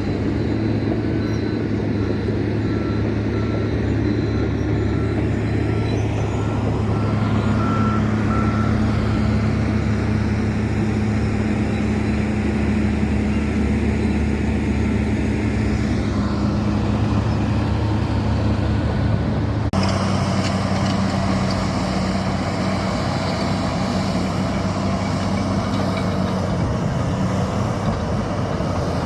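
Heavy diesel earthmoving machinery running steadily with a low engine hum. A reversing alarm beeps in an even pattern for the first several seconds. About twenty seconds in, the machine sound changes abruptly.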